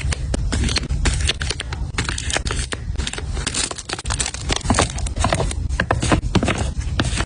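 Items being handled and put away into a storage cart: a dense run of small clicks and taps with plastic packaging crinkling between them.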